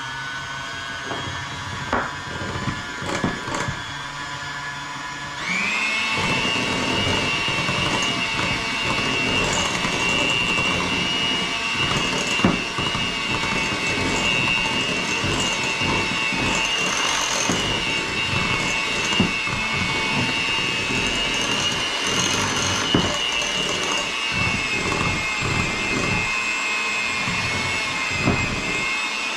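Electric mixer running as it beats a peanut butter frosting of powdered sugar, peanut butter and milk, a steady motor whine that steps up to a higher, louder speed about five and a half seconds in, with occasional sharp clicks.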